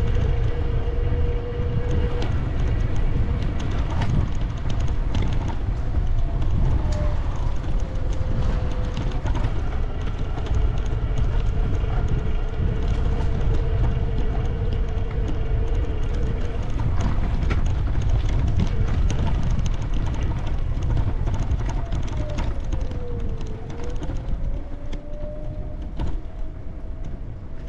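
Wind buffeting the microphone of a moving camera, a steady low rumble, with a faint thin whine that dips in pitch and comes back up a couple of times.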